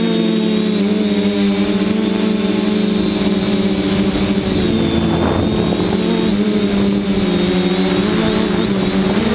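Multirotor drone's electric motors and propellers whirring steadily, heard from a camera mounted on the craft, with a brief rush of noise about five seconds in.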